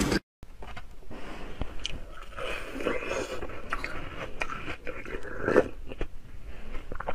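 Frozen milk ice being bitten and chewed close up: irregular crisp crunching and crackling, with one louder crunch about five and a half seconds in.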